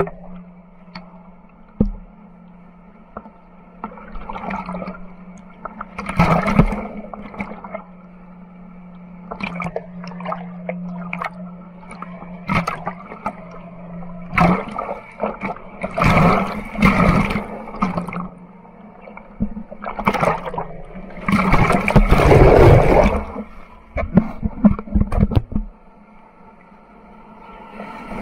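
Whitewater rushing and splashing over a boat-mounted camera that dips in and out of the water, with gurgling and irregular surges of spray. There is a steady low hum for the first half, and the loudest splash comes about three quarters of the way through.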